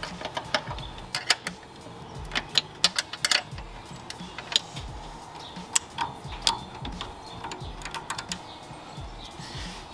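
Sharp, irregular metallic clicks and taps of hand tools on the bolts of an air-oil separator's mounting bracket, over background music.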